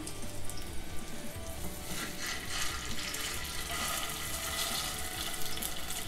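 Chicken seekh kebabs on wooden skewers shallow-frying in hot oil in a pan, with a steady sizzle. The sizzle grows louder about two seconds in, as another kebab is laid into the oil.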